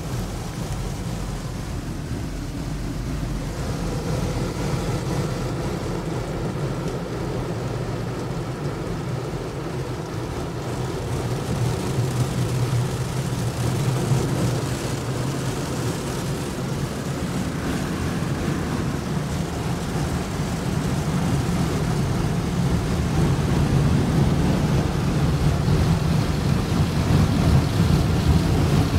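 Automatic car wash heard from inside the car: a steady rushing noise with a low hum, first water and rotating brushes working over the body, then the overhead air dryers blowing. It grows louder over the last few seconds.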